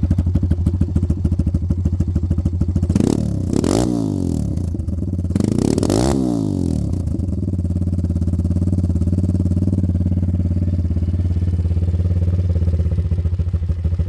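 YCF 150 pit bike's single-cylinder four-stroke engine running at idle, blipped a few times about three to six seconds in, then settling back to a steady idle.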